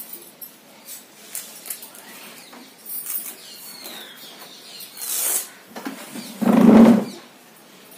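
Scuffing and rustling as a boy pulls off his strapped leather school shoes and socks on a tiled floor, with a brief rasp about five seconds in and a louder, lower half-second sound shortly before the end.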